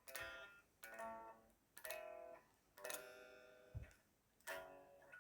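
Guitar strummed softly, one chord about every second, each left to ring and fade.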